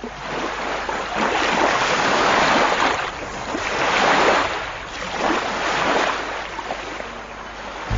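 Sea waves washing in, surging and ebbing about every two seconds.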